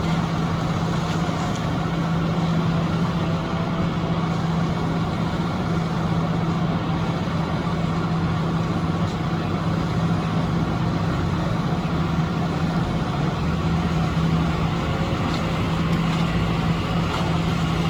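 Heavy construction machinery engine running steadily at a constant speed, with an even, low hum.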